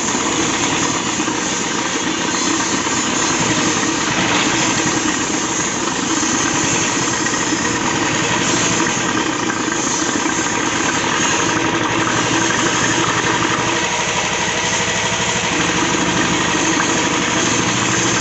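Royal Enfield UCE Electra single-cylinder engine idling steadily with the rocker cover off. It is running with almost no oil pressure, only a trickle of oil reaching the rocker gear.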